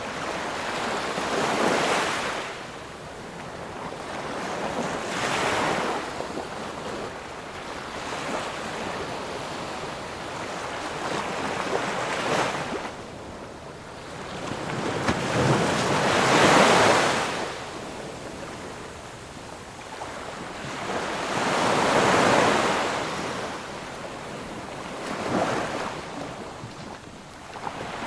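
Ocean waves breaking and washing on a shore, the surf swelling and falling back every few seconds, about six surges, the biggest around the middle.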